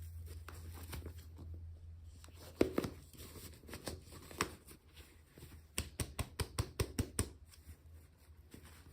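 Hands handling and opening small toy packaging: scattered crinkles and sharp clicks, with a quick run of about a dozen clicks a little past the middle, over a steady low hum.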